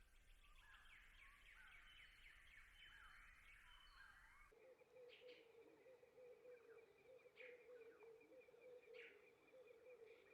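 Faint birdsong: a dense run of quick, falling chirps, which switches abruptly about four and a half seconds in to a steady trilling hum with short calls about every second and a half.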